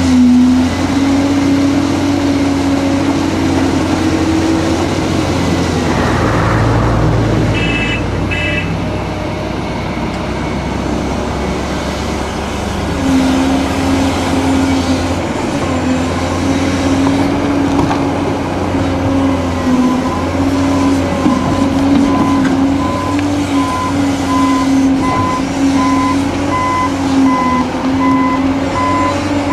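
Heavy diesel engines of a Caterpillar 385C excavator and 769D off-highway dump truck running steadily. Two short high beeps come about eight seconds in. From about two-thirds of the way through, a reversing alarm beeps at a steady even pace as the dump truck backs up.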